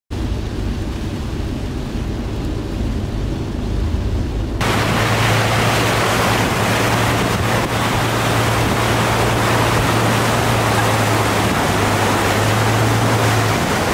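A truck driving through deep floodwater, its tyres pushing and splashing water in a steady rush over a low engine hum. The rush turns fuller and a little louder about four and a half seconds in.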